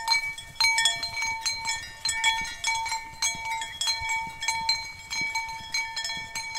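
Metal bells clanking irregularly, several strikes a second, each strike ringing on briefly, with a few different pitches among them.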